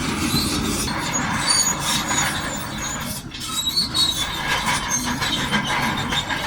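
Shantui DH17C2 crawler bulldozer working, its engine running under a dense clatter of steel tracks with squeals and clanks, dipping briefly about three seconds in.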